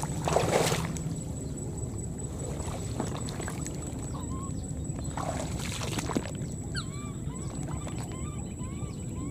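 Shallow flood water sloshing and splashing, with a louder splash about half a second in and another around five seconds. From about seven seconds in, short high chirping calls repeat several times a second.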